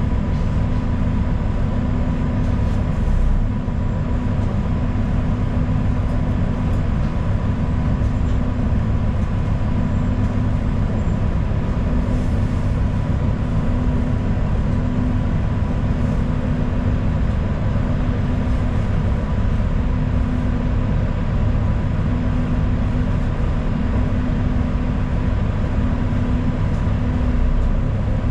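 Interior of a moving city bus: a steady low drone of engine and road noise, with a thin, constant high whine running over it.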